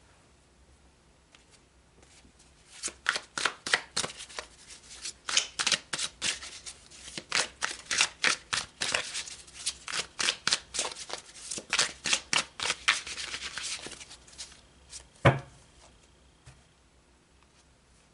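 A deck of oracle cards being shuffled by hand: a quick, uneven run of card snaps and riffling for about eleven seconds. It ends in a single thump.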